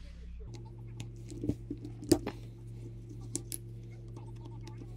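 Light metallic clicks and taps of a screwdriver and small parts being handled while motor brushes are fitted into a Lionel 671 turbine locomotive's motor, a few scattered clicks with the sharpest about two seconds in. A steady low hum runs underneath.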